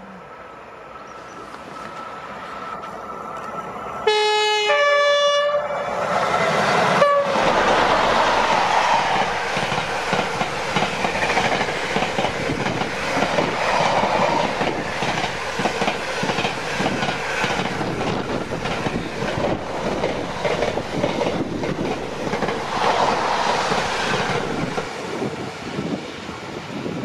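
Locomotive-hauled container freight train approaching and passing close by. The locomotive sounds a two-note horn, a lower note then a higher one, about four seconds in, with a short extra toot a couple of seconds later. The container wagons then roll past with a steady rumble and repeated clickety-clack of wheels over the rail joints.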